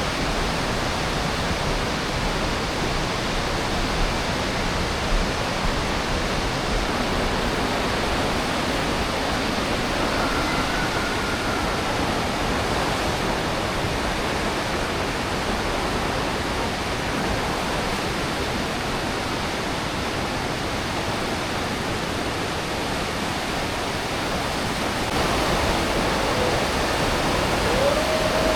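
The Aare River rushing through the gorge, a steady, unbroken sound of fast water that grows a little louder a few seconds before the end.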